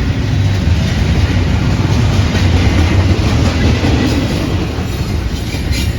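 Norfolk Southern intermodal freight train rolling past, a loud, steady rumble of wheels on the rails.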